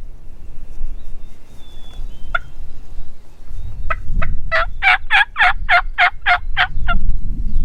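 A wild turkey gobbler gobbling once: a fast rattling run of about ten notes lasting two to three seconds, starting a little past halfway. A low rumble lies under it.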